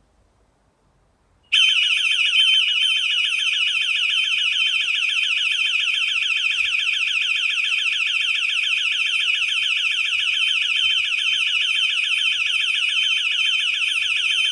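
Burglar alarm's external siren set off for a test: a loud, high-pitched, rapidly warbling wail that starts suddenly about a second and a half in and sounds steadily on.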